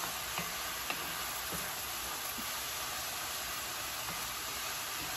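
Diced onion sizzling steadily in hot oil in a frying pan, with a few light clicks in the first second and a half.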